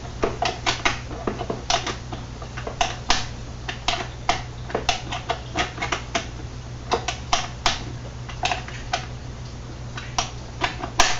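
Irregular sharp clicks and taps, a few a second and sometimes in quick clusters, from hand-tool and plastic-part work as a turn signal lamp assembly is fitted. A steady low hum runs underneath.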